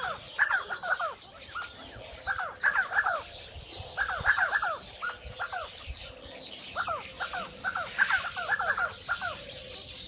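Sandgrouse calling: short downward-sliding notes repeated in quick runs of two to five, with fainter high chirps from other birds behind them.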